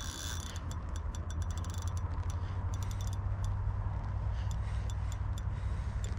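Spinning reel being cranked, its gearing giving a quick run of small irregular clicks, over a steady low rumble of wind on the microphone.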